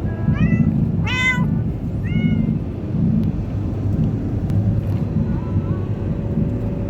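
Munchkin cat meowing, three clear rising-and-falling meows in the first two and a half seconds and a couple of fainter ones later, over a steady low rumble.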